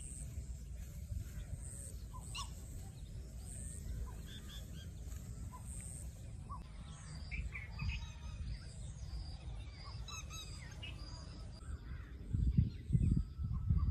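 Scattered short bird chirps and calls over a steady low rumble; near the end, louder low gusty rumbling comes in.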